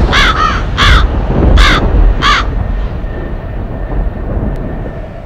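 Crows cawing: a run of about five harsh caws roughly half a second apart, stopping about two and a half seconds in, over a low rumble.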